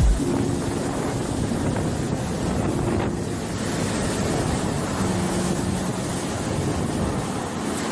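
Hurricane-force wind and driving rain blowing steadily, with wind buffeting the microphone. A faint low whistle comes and goes a few times.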